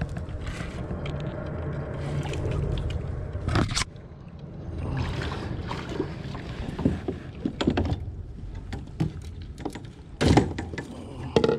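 Spinning reel being cranked as a hooked sheepshead is fought in, with handling noise and a few sharp knocks against the kayak, the loudest about ten seconds in.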